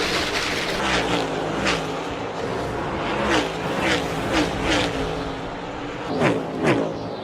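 NASCAR stock cars' V8 engines at full throttle passing by one after another, each engine's pitch dropping as it goes past. Two close passes near the end are the loudest.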